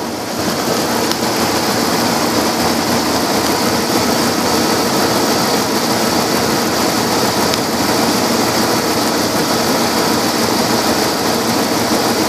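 1996 Dodge Ram 2500 engine idling steadily, with an even, unchanging running note.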